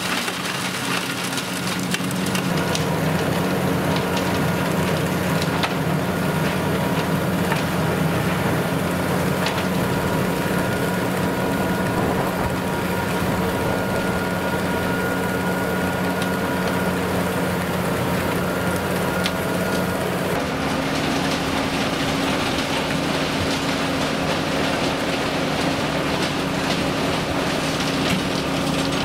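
Tractor-driven mobile drum wood chipper at work, its engine running steadily under load while wood is shredded with a continuous crackling and a rain-like patter of chips. The engine note changes abruptly about two-thirds of the way through.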